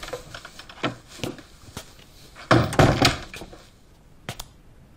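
A wooden door opening and closing: a few clicks and knocks, then a heavier cluster of thuds about two and a half seconds in as it shuts, and a couple of light clicks near the end.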